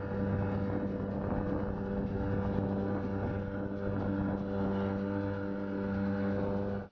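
Small outboard motor pushing a tiny coroplast motor boat, running at a steady speed with an even pitch, then cutting off suddenly at the very end.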